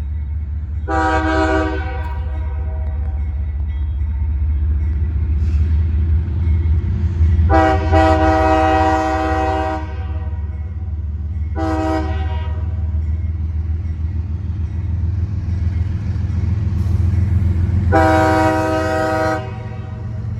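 CSX ES44DC diesel locomotive's multi-chime air horn sounding the grade-crossing signal: long, long, short, long. A steady low rumble of the passing train runs underneath.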